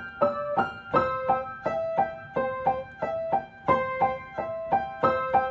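Background music: a gentle piano melody of struck notes, a few to the second.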